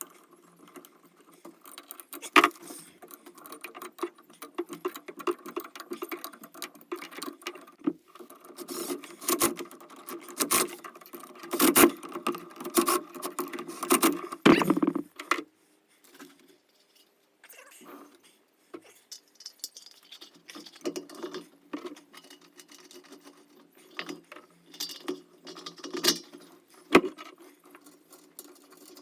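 Metal parts and hand tools being handled while a satellite dish is refitted: irregular clicking, rattling and knocking, busiest in the middle, with a few sharp louder clicks.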